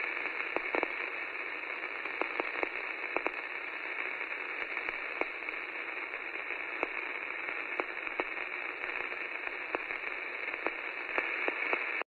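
Radio-like static: a steady, narrow-band hiss with scattered crackles and pops, cutting off suddenly at the end.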